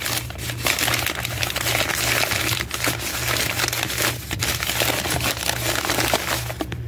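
Newspaper crinkling and rustling as it is unwrapped by hand from tomatoes set to ripen, stopping near the end.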